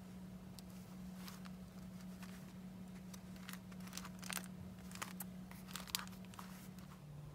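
Paper and card rustling, with light clicks and taps, as a cardstock file case tied with twine is handled and turned over; the sharpest taps come about four and six seconds in. A faint steady hum runs underneath.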